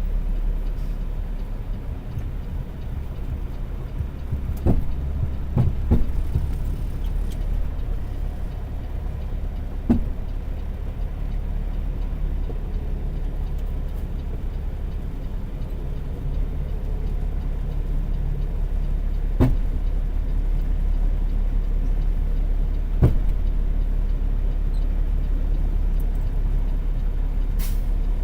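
Semi-truck's Cummins ISX diesel engine running with a steady low rumble, a few short knocks sounding over it now and then.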